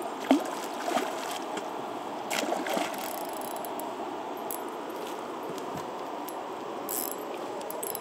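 Steady rush and lapping of river water around a raft, with a few short splashes and clicks.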